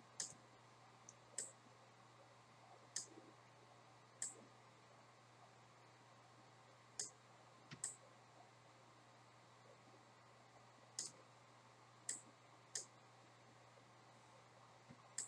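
Computer mouse clicking: about ten single sharp clicks at irregular intervals, a second or more apart, over a faint steady low hum.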